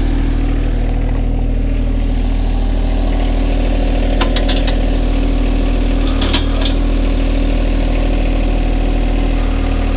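John Deere 1025R's three-cylinder diesel idling steadily, with a couple of short clicks from the backhoe controls about four and six seconds in as the outrigger is lowered to the ground.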